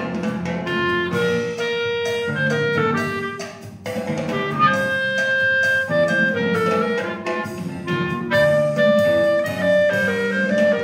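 Clarinet playing a Christmas tune, a melody of held and moving notes, over a recorded accompaniment with bass and drums. It eases off briefly between phrases about three and a half seconds in.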